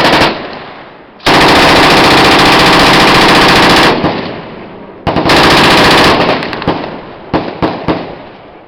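Machine gun firing on full automatic, emptying the gun: a short burst at the start, a long burst of about two and a half seconds, a second burst of about a second, then a few separate shots near the end, each burst followed by a fading echo.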